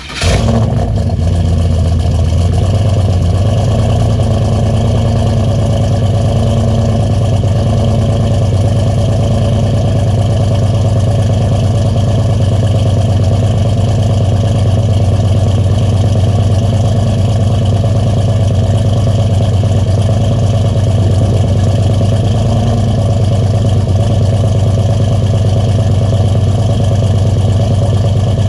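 Turbocharged LS V8 truck engine idling steadily through a newly fitted full 4-inch exhaust with a Gibson Metal Mulisha muffler, a deep even low rumble.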